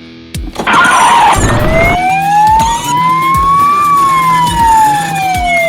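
Police siren sound, a toy's or a sound effect's, in its slow wail: a rush of noise about half a second in, then one long tone rising for about two seconds and falling away again.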